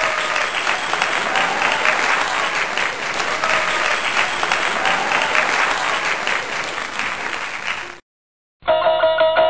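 A crowd applauding with dense, steady clapping, which cuts off suddenly about 8 seconds in. Near the end, plucked-string music starts.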